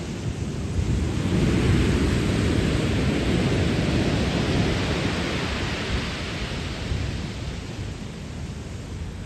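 Ocean waves breaking on a pebble beach: a deep rumbling wash that swells over the first couple of seconds and then slowly dies away.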